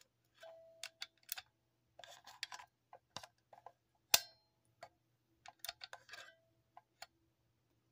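Handling noise: irregular clicks and taps, a few with a short metallic ring after them, the sharpest about four seconds in.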